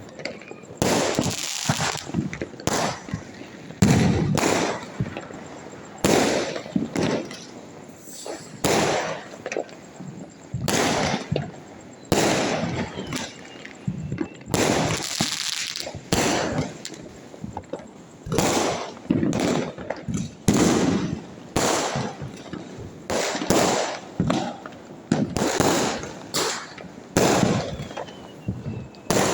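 Diwali firecrackers going off all around: sharp bangs at irregular intervals, roughly one every second, each followed by a rolling echo.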